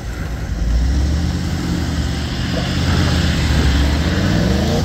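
A 4WD's engine working under load on a rough dirt climb, its revs rising near the end.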